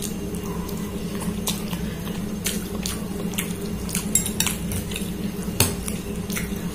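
Metal fork clinking and scraping against a glass bowl of ramen noodles, an irregular scatter of light clicks over a steady low hum.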